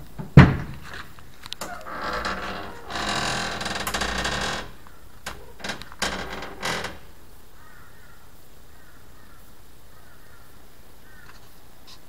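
Door latch of an early Toyota Land Cruiser FJ45 being worked through its outside push-button handle: a sharp metallic clack about half a second in, then a few seconds of scraping as the door moves. A quick series of latch clicks follows between about five and seven seconds in.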